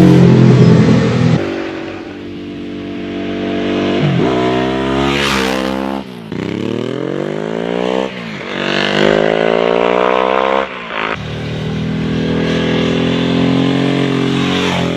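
Ducati 999 superbike's 90-degree L-twin engine revving hard, its pitch climbing and dropping back in steps, like accelerating up through the gears. Its note changes abruptly a couple of times.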